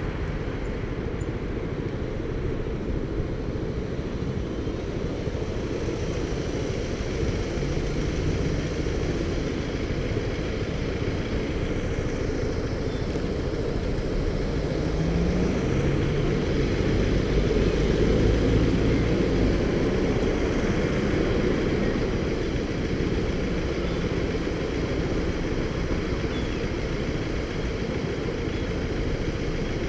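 Motorcycle engine running at low speed and idling in stop-start town traffic, with the sound of cars around it; it swells slightly about halfway through.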